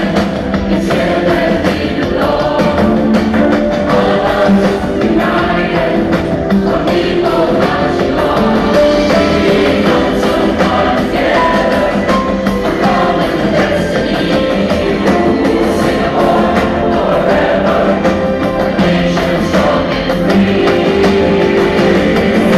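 A song sung by a large choir with instrumental backing, continuous throughout.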